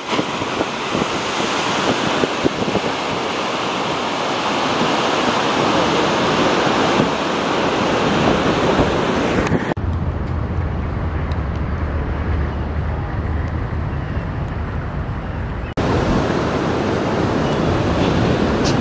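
Ocean surf breaking and whitewater washing, a steady rush of water noise. About ten seconds in the sound changes abruptly to a duller stretch dominated by low wind rumble on the microphone. About six seconds later it switches back just as abruptly.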